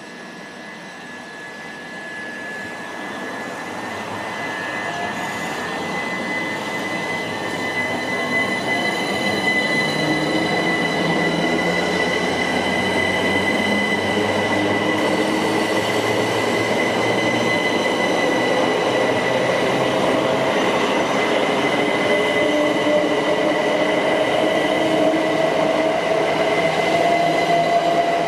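Southeastern Class 375 Electrostar electric multiple unit pulling away from the platform and running past close by. A steady high whine sits over the running rumble, with a lower whine slowly rising in pitch as the train gathers speed. The sound grows louder over the first ten seconds or so, then holds.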